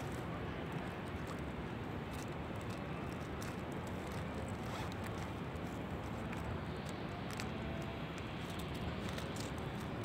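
Steady waterside ambience: a constant low hum of distant city traffic, with faint small ticks and laps of calm water scattered through it.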